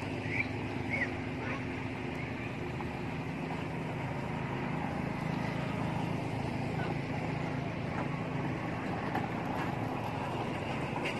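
A motor running steadily, a low even hum, with a few short high chirps in the first second or two.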